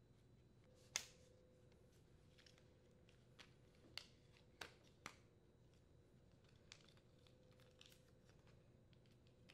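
Plastic retainers on a fabric grass bag clicking onto the metal rods of a mower grass-catcher frame: a few sharp clicks, the loudest about a second in and a cluster around four to five seconds in, over near silence.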